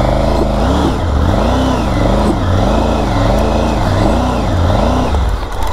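Triumph Tiger 900 GT Pro's three-cylinder engine revved up and down over and over, about one and a half swells a second, as the adventure bike struggles to climb a steep hill on loose leaf litter.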